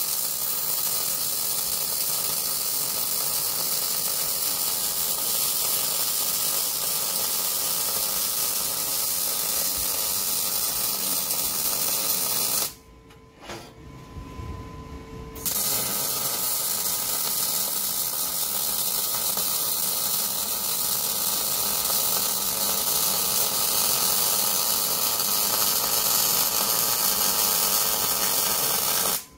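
MIG welding arc on aluminium, a steady hiss and crackle that runs for about 13 seconds, stops for nearly three seconds, then starts again for a second bead and cuts off near the end.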